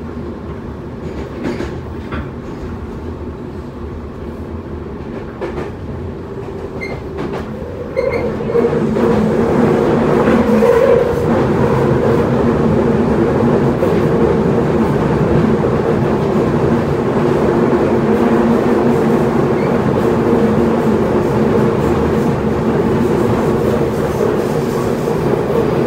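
Toei Mita Line 6300-series subway train running between stations, heard from inside the car: a steady rumble of wheels and traction motors with a few steady hums. It gets clearly louder about eight seconds in and stays loud.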